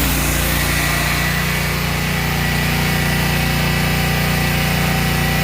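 Stihl RB800 gas pressure washer spraying: its Kohler engine runs steadily under load beneath the loud hiss of the high-pressure water jet.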